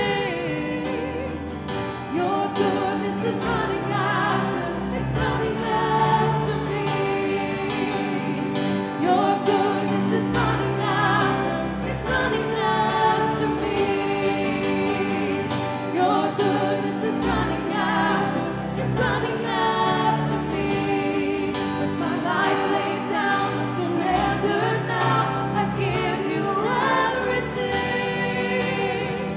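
Contemporary worship song played live by a church band: sung lead vocal over acoustic guitar and piano with a steady bass, continuing without a break.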